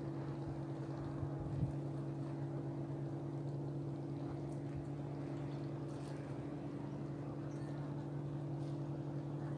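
Boat engine running steadily with a low, even hum. There is a brief knock about one and a half seconds in.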